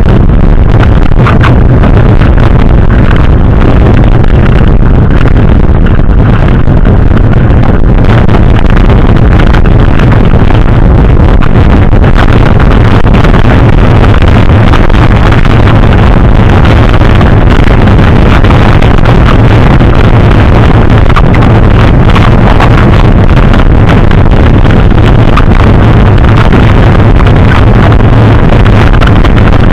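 Wind buffeting a helmet or handlebar camera's microphone on a fast mountain-bike ride, a loud, steady rush with constant small rattles from the bike and trail.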